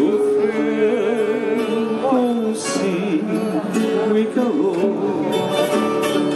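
Live fado ensemble of accordion, violin and guitars playing a melody together: sustained accordion and violin lines that waver in pitch over plucked guitar notes.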